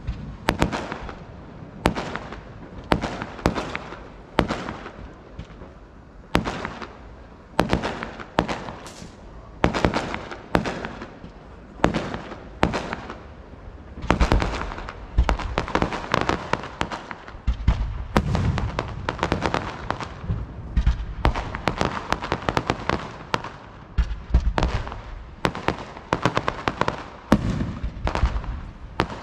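Professional fireworks display heard from a distance: a steady run of sharp bangs, each trailing off briefly. From about halfway the bangs come thicker, with a low rumble underneath.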